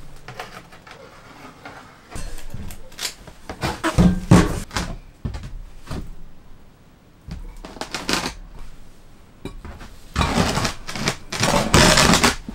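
Cement pavers being set down and slid into place on a wooden tent floor: irregular knocks and gritty scrapes, busiest early and again near the end, with a quieter pause in the middle.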